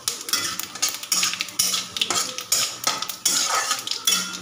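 Metal spatula scraping and tapping irregularly against a metal kadai, stirring whole cumin, dry red chillies and bay leaves as they sizzle in hot oil: the tempering (phoron) stage of frying whole spices.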